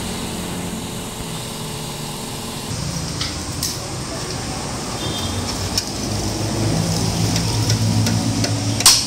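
A steady, low engine-like hum, a little stronger in the second half, with a few light clicks and one sharp click near the end.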